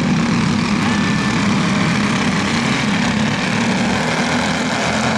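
A pack of racing go-kart engines running together in a steady, loud drone.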